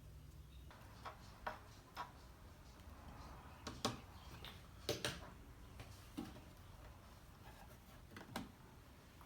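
A handful of faint, scattered clicks and light taps, about seven over several seconds, the loudest near the middle, over a low steady hum.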